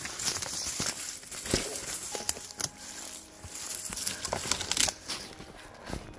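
Hurried footsteps crunching and rustling through dry fallen leaves and brushing past twigs and branches, an irregular run of crackles and snaps.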